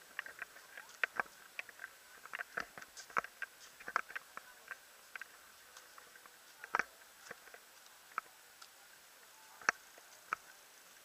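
Scattered light clicks and taps at irregular intervals over a faint steady hiss, thicker in the first half and only a few single clicks later on.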